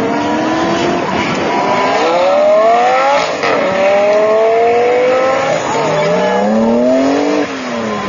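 Supercar engines, a Porsche 911 Turbo and Lamborghini Gallardo Spyders, accelerating hard one after another past the camera. Their engine notes rise steadily and drop at gear changes about three seconds in and near the end.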